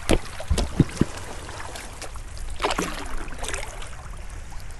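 A hollow plastic float buoy knocking down onto beach cobbles, a few sharp thuds in the first second, with shallow lake water lapping over the stones. A few more knocks and splashes come about halfway through.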